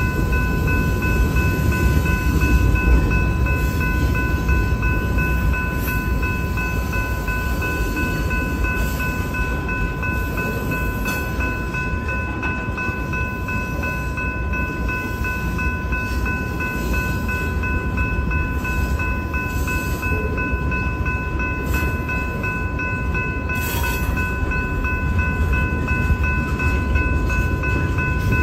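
A freight train's cars rolling past a grade crossing: a steady low rumble of wheels on rail. Over it the crossing signal's warning bell rings with a steady high tone.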